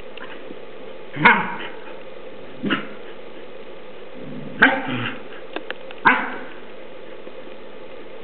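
Dogs at rough play, giving single short barks and yips, four of them one to two seconds apart.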